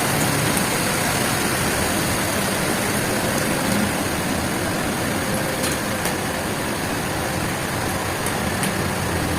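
Heavy engine-driven machinery running steadily at a sawmill, with a few faint clicks in the second half.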